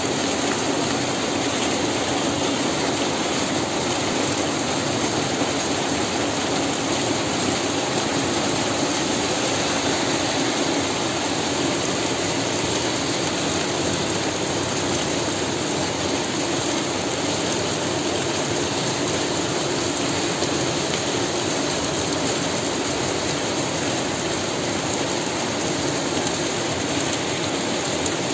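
Heavy monsoon rain pouring steadily, a dense even hiss that doesn't let up.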